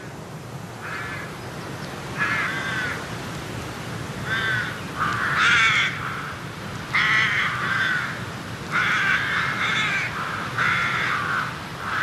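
Crows cawing, a dozen or so harsh calls coming irregularly, some back to back, over a faint steady low hum.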